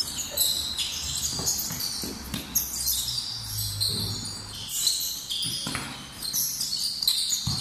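A basketball bouncing on a hard court, several sharp bounces about a second apart, with short high squeaks of players' shoes on the floor in between.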